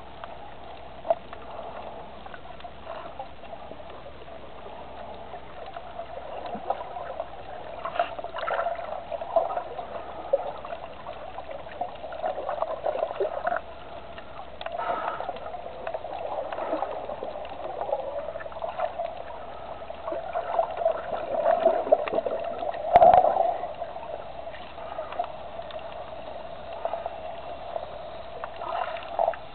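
Water heard underwater: a steady muffled wash with scattered crackles and clicks, swelling louder now and then, and one sharp knock about 23 seconds in.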